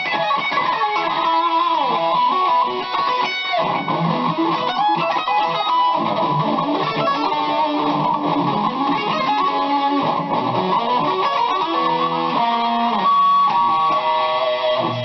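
BC Rich Mockingbird electric guitar played through a distorted rock amp tone: a continuous run of riffs and single notes, with quick repeated notes near the end.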